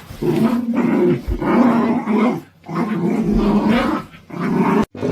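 Dog growling in three long drawn-out stretches with short breaks between, cut off abruptly near the end.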